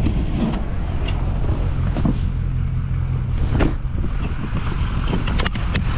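LML Duramax 6.6-litre V8 turbo-diesel pickup running with a steady low rumble. A few sharp clicks come near the end.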